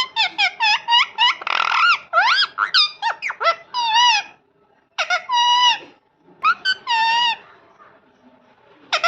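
Parrot calling: a fast run of short squeaky chirps, a brief harsh screech, then several longer wavering squawks with short pauses between them.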